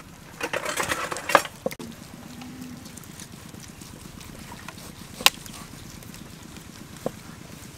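Cleaver blades cutting raw beef on a wooden chopping block, with one sharp knock of steel on wood about five seconds in and a lighter one near the end, over steady low background noise.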